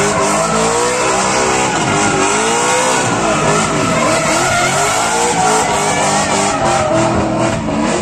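BMW drift car's engine revving hard, its pitch swinging up and down again and again with the throttle, over the steady hiss of spinning, smoking tyres.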